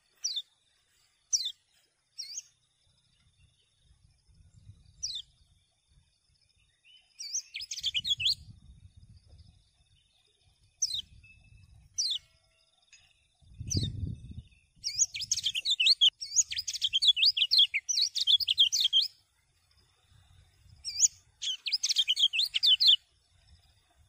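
Kecial kuning, a white-eye, singing: several short sharp downslurred chirps, then fast twittering warbled phrases, the longest about four seconds. A faint steady high tone runs underneath, and there is one low thump about fourteen seconds in.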